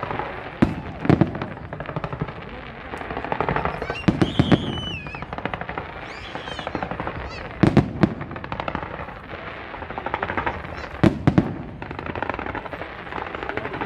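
Fireworks display: loud bangs in clusters about every three to four seconds, with dense crackling in between as the bursts open.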